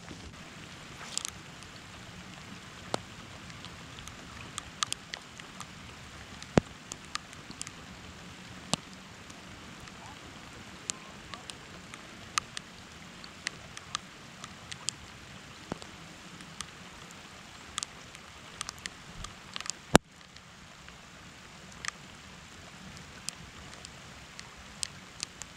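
Rain falling: a steady hiss with scattered single drops ticking sharply close by. A sharp crack about twenty seconds in is the loudest sound.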